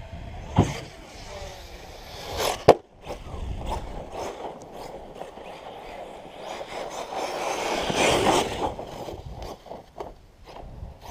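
Arrma Kraton 6S RC truck running over dirt and gravel, its tyres crunching and scraping: a sharp knock under a second in, a build to a hard, loud impact about two and a half seconds in, then more rough scraping that swells around eight seconds.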